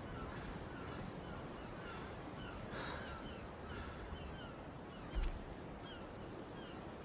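Outdoor island ambience: many short, high, falling bird calls over a steady hiss, with a soft breath about three seconds in and a brief low thump about five seconds in.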